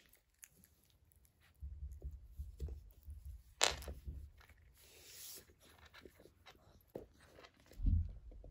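Corgi puppy mouthing and chewing, ending on a spiky rubber toy bone: scattered small crunching clicks. There are spells of low rumbling, one sharp click a little before halfway, and a low thump near the end.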